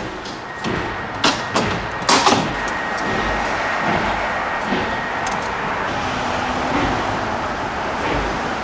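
A few clicks and knocks from a glass entrance door in the first couple of seconds, then the steady noise of road traffic passing on the street below.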